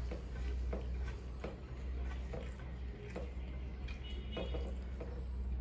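Eating sounds at the table: irregular soft clicks and smacks of chewing and of fingers working rice in wooden bowls, about two a second at most, over a steady low hum.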